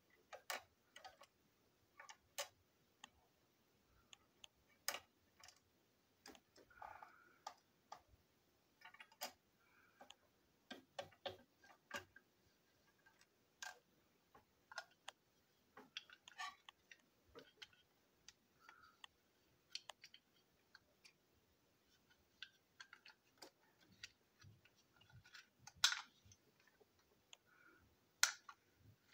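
Irregular faint clicks and taps of small plastic toy-train parts being handled and fitted together: blue wheelsets pressed into the black chassis of a Gordon tender and the tender body snapped on.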